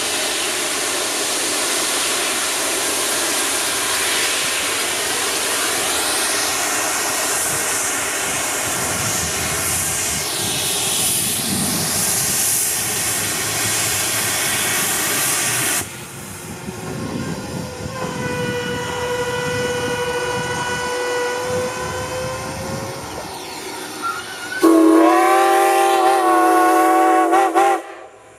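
Steam locomotive, Strasburg Rail Road No. 90, a 2-10-0, letting off a loud steady hiss of steam. After a sudden cut its whistle sounds: first a steady single note, then a louder, wavering chord of several notes near the end.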